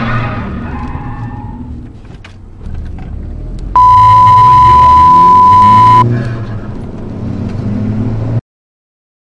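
A loud, steady censor bleep lasting about two seconds, covering a swear word. It plays over the Golf GTI's engine heard from inside the cabin, which rises in pitch after the bleep as the car accelerates. The sound cuts off suddenly near the end.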